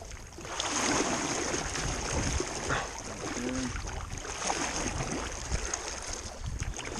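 Steady rush of moving water around a canoe in a river current, swelling up about half a second in.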